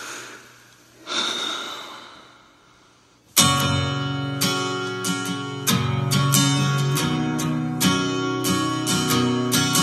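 Strummed acoustic guitar starts suddenly about three and a half seconds in, with a sharp chord every second or so: the intro to the song that is about to be sung. Before it come two breathy swells of noise.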